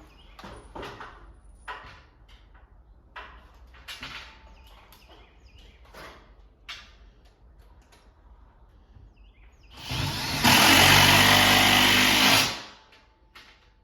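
Light knocks and taps of cabinet work, then a power drill runs hard for about two and a half seconds near the end and stops abruptly.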